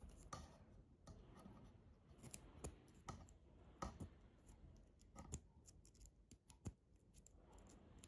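Faint, irregular small metal clicks and ticks, about a dozen, from a thin metal tool working the plates of a double-bit key.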